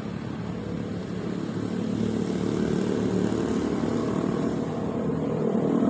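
Motorcycle engine running steadily, a little louder after the first second or two.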